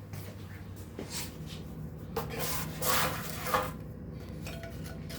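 Light kitchen handling noises: a click about a second in, then a few short rubbing and scraping sounds in the second half, over a low steady hum.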